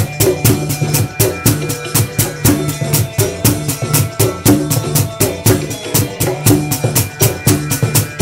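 Music with a fast, steady drum and percussion beat over a repeating low riff.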